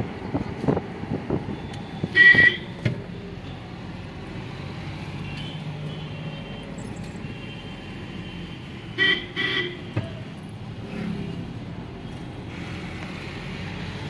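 Vehicle horn honks: one short blast about two seconds in and two quick blasts about nine seconds in, over the steady running and road noise of a car heard from inside the cabin.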